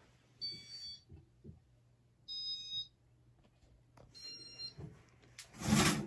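Three short electronic beeps from a Casablanca Inteli-Touch ceiling-fan control, about two seconds apart, as the Casablanca Meridien fan is stepped up in speed, over a low steady hum. Near the end a brief noisy rush is the loudest sound.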